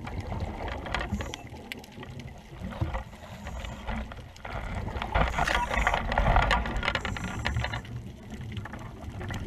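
Underwater sound picked up through a GoPro housing: a low muffled rumble of water movement with many scattered crackling clicks. A louder scratchy rustle from about five to seven seconds in, as the camera pushes through seaweed.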